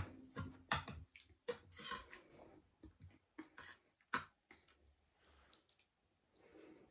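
Quiet eating sounds: soft chewing and scattered clicks of spoons and forks against plates, the sharpest about four seconds in.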